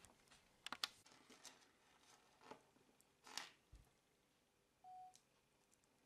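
Near silence with faint handling noise, a few light clicks and rustles as a clip-on phone magnifier is fetched and set up, and one short steady electronic beep about five seconds in.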